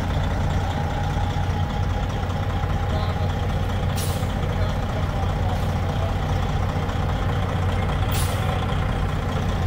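Kenworth heavy wrecker tow truck's diesel engine idling steadily. Two short bursts of air hiss from its air system come about four seconds in and again about four seconds later.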